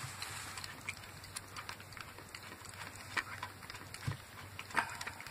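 Mother dog licking a newborn puppy: faint wet licking with scattered soft clicks.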